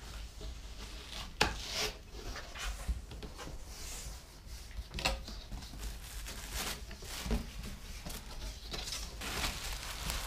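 Cardboard shipping box being opened and handled: flaps pulled apart and the packed heater and cardboard sliding and rubbing against each other, with scattered knocks and scrapes.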